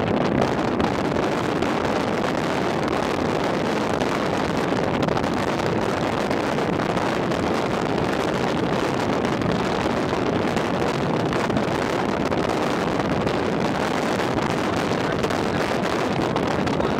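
Steady, even rushing of wind across the microphone while filming outdoors in a storm.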